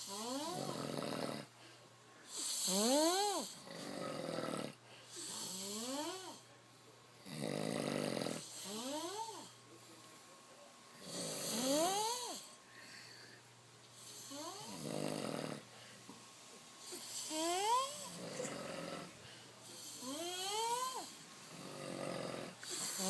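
Sleeping men snoring: about every three seconds a pitched snore rising in pitch, alternating with a rough, noisy snore, in a steady rhythm.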